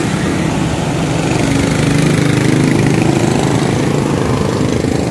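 Motorcycle and car engines passing close on a road: a steady engine hum whose pitch drifts slightly up and down, over a constant hiss.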